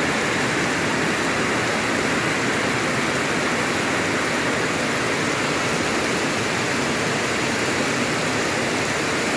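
Heavy rain pouring down in a steady downpour, a dense even hiss with no letup.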